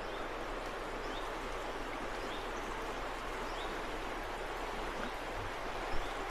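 The Mangfall river flowing fast over shallow riffles and around a rock, giving a steady, even rushing of water.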